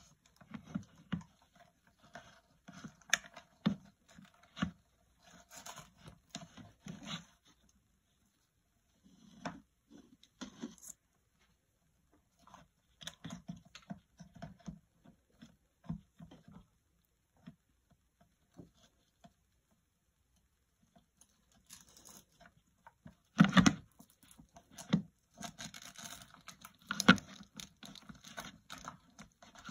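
Handling noises while a battery is fitted into an RC boat's hull: irregular clicks, scrapes and rustles of plastic parts, with pauses. Near the end come a few louder knocks.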